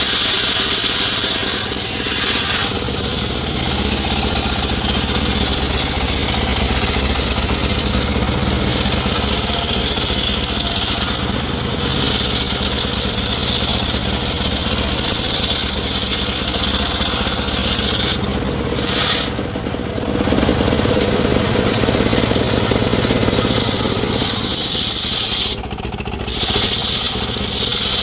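Engine-powered wood saw running steadily, its tone shifting a few times, around two seconds in, two-thirds of the way through and near the end.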